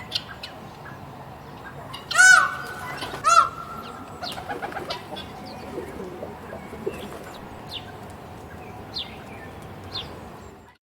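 Peacock calling twice, two loud cries about a second apart, each trailing into a held tone, over scattered short chirps of other birds.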